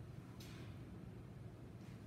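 Quiet room tone: a low steady hum, with one faint brief rustle about half a second in.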